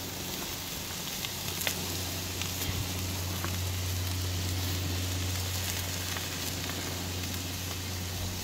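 Steaks sizzling on a hot ridged grill grate: a steady hiss with scattered small pops and crackles, over a steady low hum.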